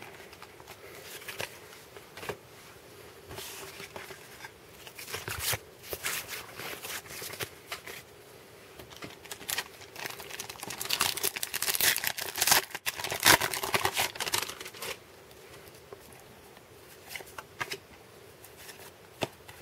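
Hands tearing open and crinkling a baseball-card pack wrapper and handling the cards: scattered crinkling and rustling, busiest about halfway through.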